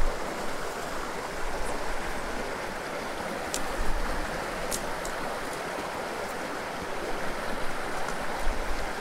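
Small creek running over a rocky bed: a steady rush of flowing water, with a couple of faint ticks in the middle.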